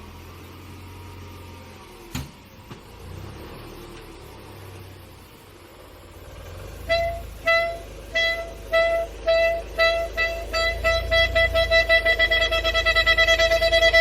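Car parking sensor beeping over a low engine rumble. The beeps start about seven seconds in at under two a second and speed up into a rapid stream, the sign of the car closing on an obstacle. A sharp click about two seconds in.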